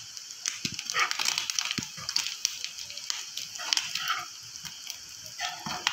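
Spiced prawns sizzling as they roast in oil in a nonstick frying pan. A steel spoon stirs them, scraping and clicking irregularly against the pan.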